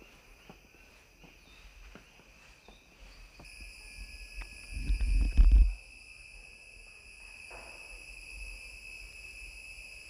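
Steady high-pitched insect chorus in the reserve's vegetation, growing louder about three seconds in. About five seconds in, a low rumble lasting about a second is the loudest sound.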